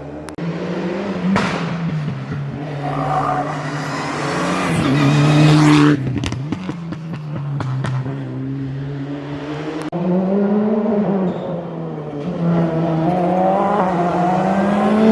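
Rally cars at full race pace: engines revving hard, pitch rising and falling through gear changes, with a few sharp cracks. The sound changes abruptly about six and ten seconds in as another car takes over.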